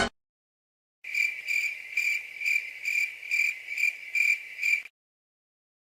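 A cricket chirping: a steady run of about nine high chirps, a little over two a second, lasting about four seconds. It is the stock 'awkward silence' crickets sound effect.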